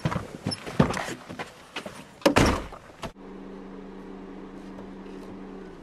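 Car door handling: several knocks and clunks, and a door shutting with a heavy thump about two and a half seconds in. After an abrupt cut, a steady low hum takes over.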